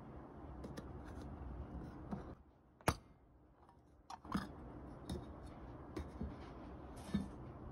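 Small round metal tea tin being handled and opened: a series of sharp metallic clicks and taps as the tabbed lid is pressed and lifted off, the loudest click about three seconds in.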